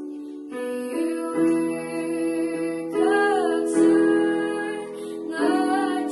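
A girl's solo voice singing a slow melody, accompanied by held chords on an electronic keyboard; her longer notes bend and waver at about three seconds in and again near the end.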